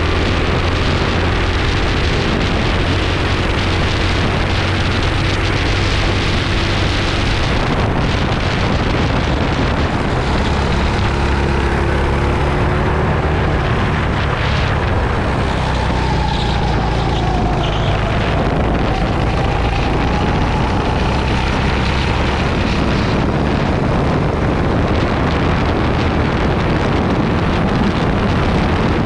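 Onboard sound of a racing go-kart's engine running hard at speed, with wind buffeting the microphone. A little past halfway the engine pitch dips and then climbs again.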